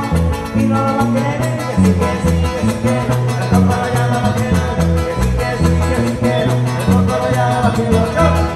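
Loud Latin dance music with a bass line that changes note about twice a second under guitar and other instruments.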